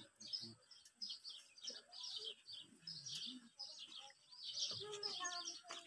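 Small birds chirping busily, with many short high chirps one after another. Faint low voices murmur underneath.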